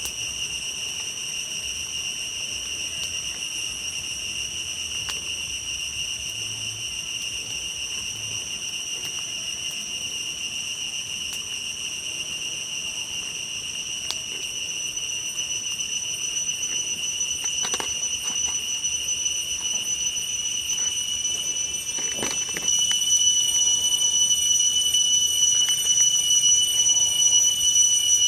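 Insects chirring in a steady, shrill high-pitched drone that grows louder about halfway through and again near the end, with a few faint clicks.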